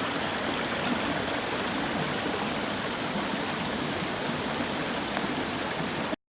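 Steady rushing of a rocky creek, water flowing over and around river rock. It cuts off abruptly just before the end.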